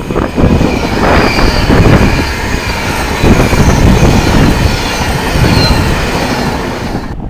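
Class 390 Pendolino electric train passing through at speed: a loud, steady rush of wheels on rail and air past the carriages, with a faint high whine now and then. It cuts off abruptly near the end.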